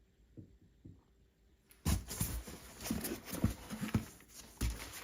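A few faint taps, then from about two seconds in a hard-shell case is handled and opened: rustling, scraping and irregular knocks, with a zipper sound likely among them.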